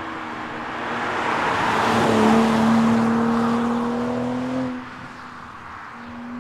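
BMW M340i Touring's 3.0-litre turbocharged straight-six accelerating, its note climbing steadily under a rush of noise. The sound swells to a peak about two seconds in, as a car passing by, and then fades. The note breaks off just before five seconds in and starts climbing again a second later.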